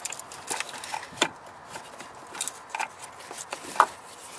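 Hands working an engine's ignition coil and its wiring connector loose: scattered sharp clicks and light rubbing, with the two loudest clicks about a second in and near the end.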